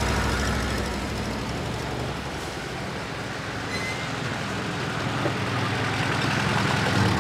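Car engines running as vehicles pull up and stop: a UAZ police jeep, then a Lada Zhiguli sedan. The rumble grows louder toward the end.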